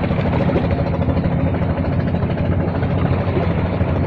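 An engine running steadily at an even pitch, a constant low drone with no change in speed.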